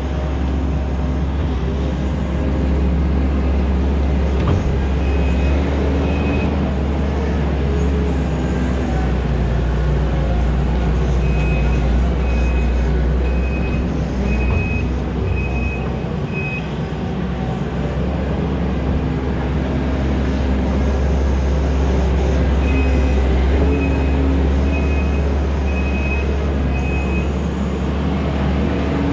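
Kubota skid steer's diesel engine running steadily under load while it works topsoil with a Harley power rake. Its backup alarm beeps in three runs, about one beep a second, as the machine reverses.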